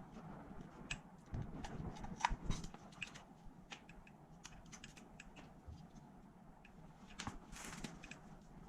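Irregular light clicks and taps of small metal engine parts and hand tools being handled, with a short rustle near the end.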